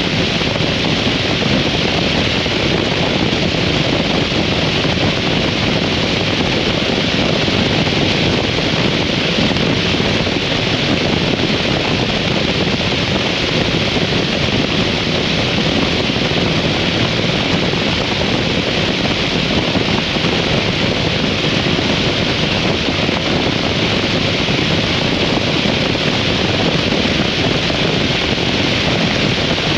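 Steady rush of wind on the microphone of a moving 2003 Harley-Davidson V-Rod motorcycle, with the bike's engine and road noise blended under it.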